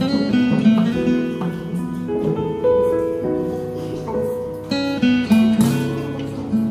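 Background music led by a plucked and strummed guitar.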